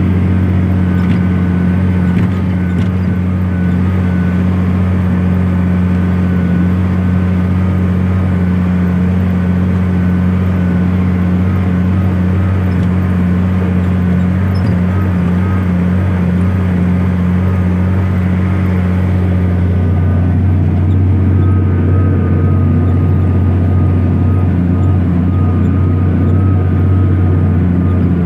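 Case IH Steiger STX500 tractor's diesel engine running steadily under load while pulling a plough, held at about 1800 rpm. Its note changes slightly about two-thirds of the way through, the upper hum dropping away.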